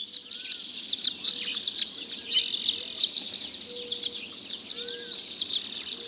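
Dawn chorus: many songbirds singing at once, a dense, continuous tangle of high chirps and trills, with a few lower rising-and-falling whistled notes.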